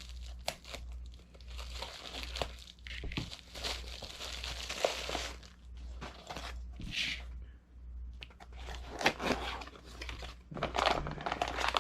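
Packaging being torn open and crumpled by hand while a parcel is unboxed: irregular crinkling and tearing in bursts, with brief pauses.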